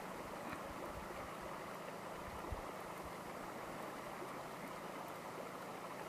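Steady, faint lakeside ambience: an even wash of lapping water and wind noise, with a faint low hum underneath.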